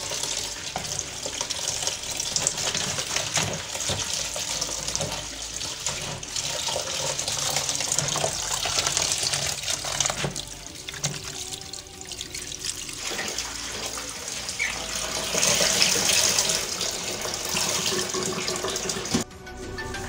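Kitchen tap running into a stainless steel sink while hands rub and rinse leafy greens (atipa and mrenda) in a plastic colander. The water noise eases for a couple of seconds just past the middle, and the sound cuts off abruptly near the end, giving way to background music.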